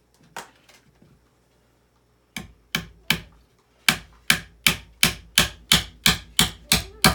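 Hammer driving a nail into a wooden benchwork board: a couple of light taps, then from about two seconds in a series of about a dozen sharp blows, settling into roughly three a second.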